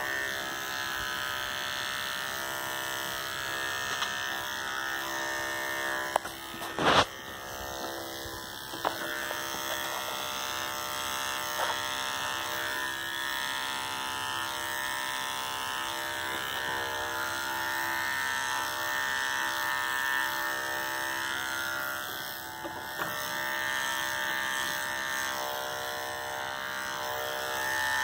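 Andis electric dog clippers running with a steady buzzing hum as they clip a miniature schnauzer's coat. A sharp knock about seven seconds in.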